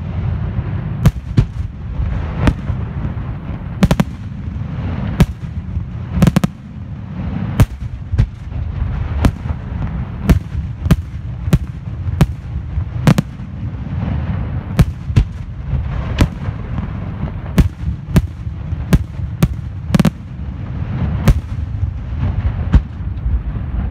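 Aerial firework shells bursting in the sky in an irregular series of sharp bangs, about one to two a second, over a continuous low rumble.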